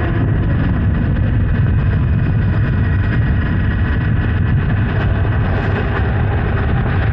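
Honda Hornet 900 motorcycle's inline-four engine running steadily on the move, under a heavy low rumble of wind noise.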